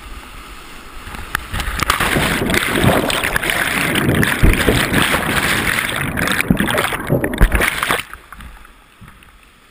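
Whitewater rushing and crashing over a GoPro as a kayak runs a creek rapid, growing loud and churning about two seconds in as the camera goes into the foam, with a few heavy thuds, then dropping away sharply near the end.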